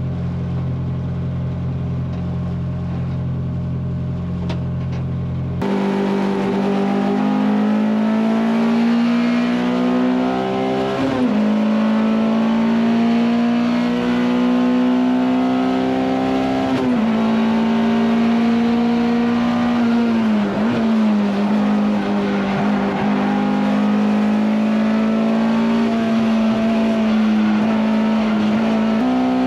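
Honda S2000 race car's F22C four-cylinder engine heard from inside the cabin: idling steadily at first, then after a cut running hard at high revs, its high pitch dropping sharply at each of several gear changes.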